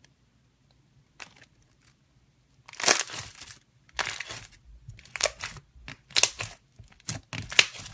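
A hand pressing and squeezing clear slime, making crackling, crunchy pops as air pockets are squashed. After a quiet start, the crackling comes in about six bursts, roughly one a second.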